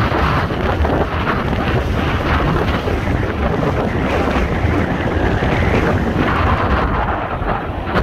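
Large waterfall: a loud, steady rush of falling water, with wind buffeting the microphone.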